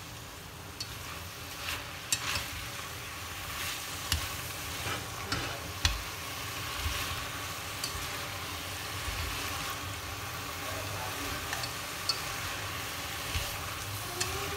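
Chayote shoots sizzling as they are stir-fried over high heat in a stainless steel pot, with irregular sharp clicks of wooden chopsticks against the pot as they toss the greens.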